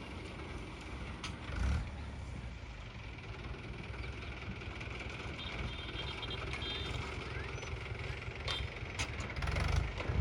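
Diesel engine of heavy earth-moving machinery running steadily at a low, even pace, with a brief low surge about a second and a half in and another near the end.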